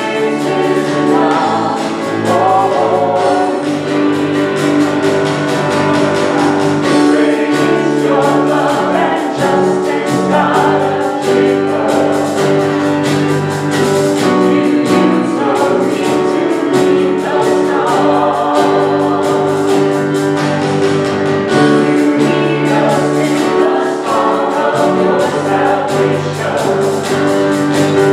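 Contemporary Christian worship song: a group of voices singing over sustained instrumental chords and a bass line.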